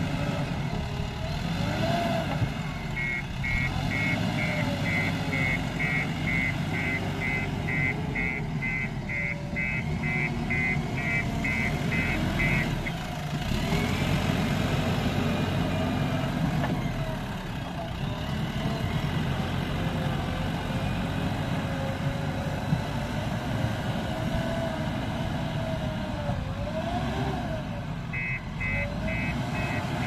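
JCB backhoe loader's diesel engine running steadily as it works, its pitch rising and falling slowly. A reversing alarm beeps about twice a second for roughly ten seconds starting a few seconds in, and again near the end.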